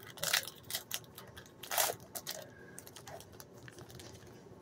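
A hockey card pack being opened and its cards handled: a quick run of crinkles and clicks from the wrapper and cards over the first couple of seconds, then only faint handling.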